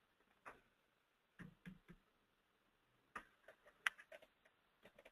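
Faint, scattered clicks of a computer mouse, a few singly in the first two seconds, then a quick cluster about three to four seconds in.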